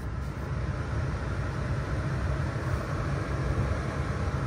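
Garage door opener running as the door closes: a steady low rumble that grows slightly louder.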